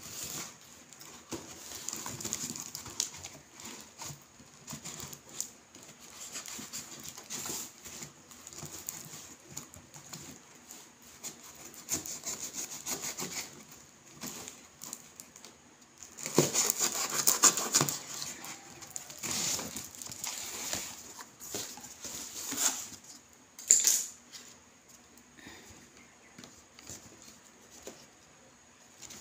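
Kitchen knife sawing and scraping through packing tape and cardboard, with rubbing and rustling as the taped box is worked open. A louder stretch about halfway through, and one sharp knock later on.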